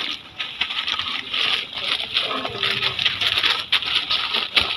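Plastic snack packets crinkling and rustling as they are handled and put into a plastic shopping basket, full of small crackles and clicks, with a couple of soft knocks near the end.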